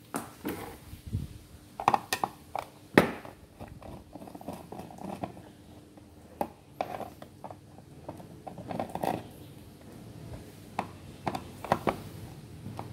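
Irregular clicks and knocks as a plastic-bodied Philips Diva dry iron and its cord are handled and moved about on a wooden table. The sharpest knock comes about three seconds in.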